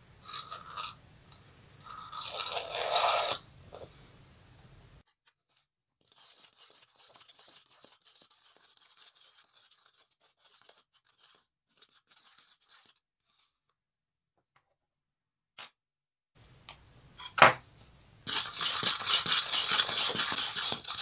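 Plastic tub being handled, with short bursts of scraping and crunching: about a second in and again around two to three seconds in, then a long near-silent stretch with faint ticks, then a loud run of fast, rapidly repeating scraping near the end.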